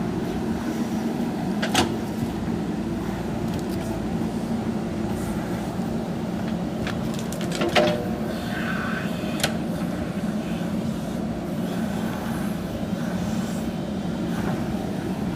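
JCB backhoe loader's diesel engine running steadily, with a few sharp metallic knocks from the machine about two, eight and nine and a half seconds in.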